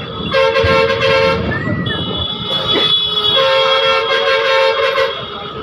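Vehicle horn honking in two long blasts, the first about a second, the second nearly two seconds, over the road noise of a moving bus.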